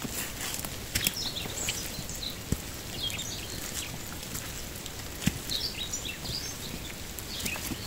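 Footsteps on a wet, muddy forest trail, a few sharp steps standing out, against a steady hiss of light rain, with birds chirping in short high calls throughout.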